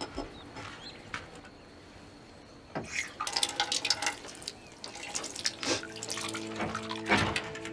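Dishes being washed at a sink: water splashing and running, with plates clinking and clattering from about three seconds in. A few held notes of soft music come in over the last couple of seconds.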